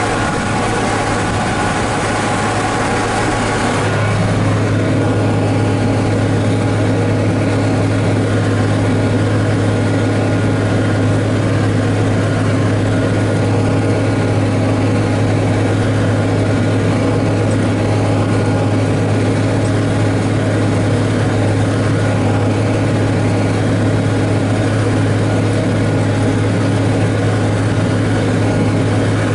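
John Deere 4055 tractor's diesel engine running steadily under load while baling hay, a continuous low drone heard from the cab. About four seconds in the low drone grows stronger and the higher hiss eases.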